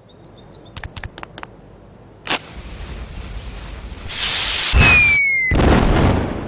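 Firework sound effect, most likely for an intro. A few sharp clicks and a crack give way to a fuse-like hiss that turns loud about four seconds in, with a short falling whistle.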